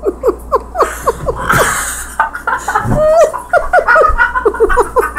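A person laughing in a rapid string of short, high-pitched giggles, about five a second, each note dropping in pitch.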